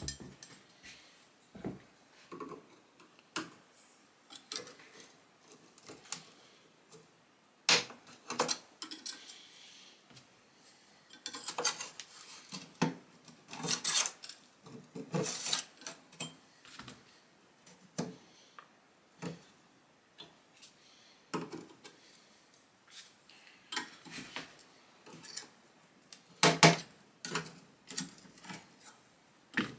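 Hand tools working a painted panel on an old wooden rocking chair: a metal putty-knife blade scraping and tapping as it is worked behind the panel, and a small wrench clicking on the panel's fasteners. Irregular clicks, taps and short scrapes, busiest in the middle and near the end.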